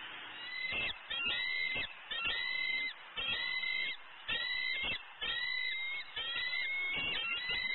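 Bald eagle calling: a high, chittering call repeated about once a second, each call a quick run of piping notes.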